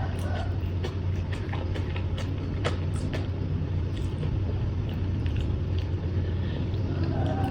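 Steady low rumble, with scattered short, irregular clicks and crunches of someone chewing and eating papaya salad and raw vegetables.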